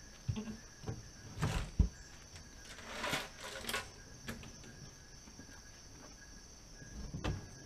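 Steady high-pitched insect chirring, with a few scattered knocks and rustles; the loudest is a sharp knock about two seconds in, with another near the end.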